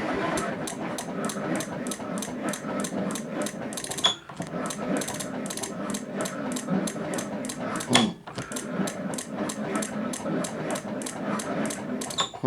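Honda Ruckus 49cc four-stroke single-cylinder engine cranking on its electric starter without firing, in three long goes of about four seconds each, with an even beat of about three compression strokes a second. The long-stored engine will not catch even on starting fluid, which the owner suspects may be a battery that isn't fully charged.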